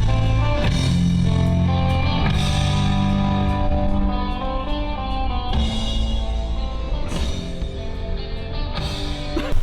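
Rock music led by guitar, with held chords that change every few seconds.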